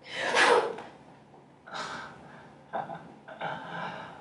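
A woman scoffs with one sharp, loud breath, then huffs several softer breaths.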